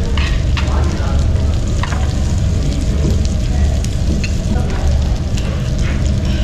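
Jeju black pork sizzling on a tabletop barbecue grill, with scattered crackles and spits over a steady low rumble.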